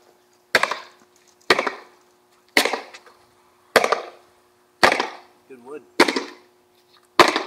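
Wooden skateboard deck slammed repeatedly against a concrete block wall: seven hard wooden cracks, about one a second.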